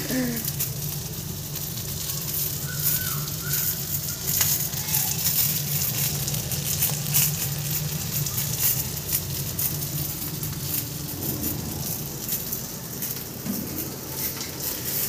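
Fish pieces shallow-frying in a little oil on a hot tawa: steady sizzling with fine crackles and pops, over a low steady hum.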